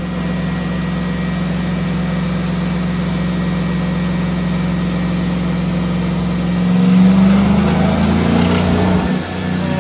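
Chevrolet 5.3 L LS V8 running on brake cleaner instead of gasoline, holding a steady engine speed on a chassis dyno. About seven seconds in it gets louder and its note shifts, with a few short sharp clicks, the fuel being prone to spark knock.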